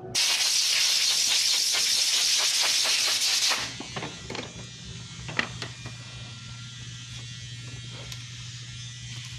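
Barbershop compressed-air blow gun, fed by a coiled air hose, blasting in one long hiss for about three and a half seconds before cutting off sharply. After it a steady low hum goes on, with light clicks and one sharp knock about five seconds in.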